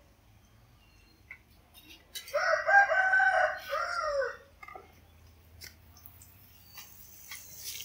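A rooster crowing once, a single drawn-out call of about two seconds that starts about two seconds in and falls away at the end.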